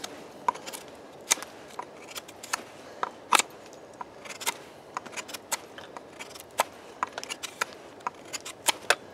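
Steel dagger blade shaving a stick of green wood: a run of short, sharp scraping strokes at irregular spacing, two or three a second, each taking a thin shaving.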